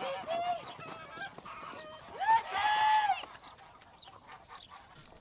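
A flock of white domestic geese honking, several calls in quick succession, the loudest and longest about two seconds in, then dying away.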